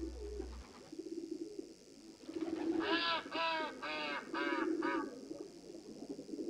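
Birds calling. A low warbling call repeats throughout, and about three seconds in, one bird gives five loud harsh calls in quick succession, about two a second.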